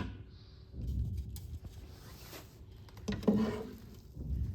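Handling noise of car subwoofers being moved about on a table: soft low bumps, and a louder knock about three seconds in.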